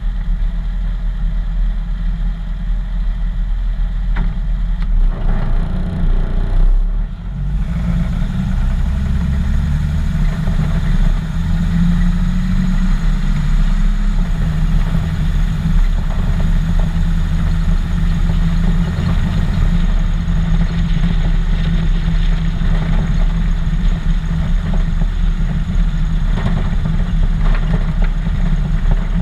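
Engine of a 1941 Chevrolet custom truck idling. After a brief dip about seven seconds in, it settles into an even idle.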